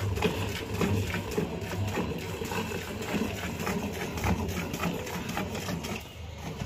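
Rhythmic squirts of milk from a cow's teats, hand-milked in quick alternating strokes, streaming into a steel pail that already holds milk. The strokes ease off briefly near the end.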